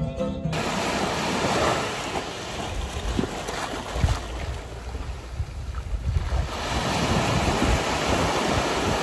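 Wind buffeting the microphone over a steady rush of water; it eases briefly about halfway through and then picks up again. Background music cuts off about half a second in.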